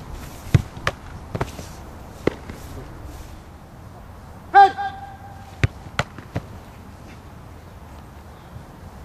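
A football being kicked and caught during goalkeeper drills: a run of sharp thuds from kicks, saves and landings on grass. About halfway through a short shouted call rings out, the loudest sound, followed by three more ball thuds.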